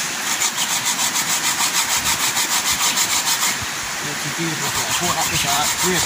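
Coconut flesh being grated by hand on a metal box grater set in a pot: rhythmic scraping strokes, about three a second, easing off briefly about three and a half seconds in.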